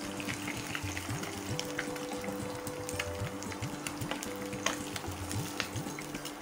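Katla fish pieces sizzling and crackling in hot mustard oil, with many small scattered pops, while a wooden spatula turns and lifts the fried pieces out of the pan.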